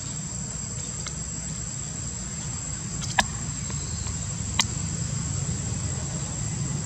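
Insects droning in a steady high tone over a low outdoor rumble, with two sharp clicks about three and four and a half seconds in.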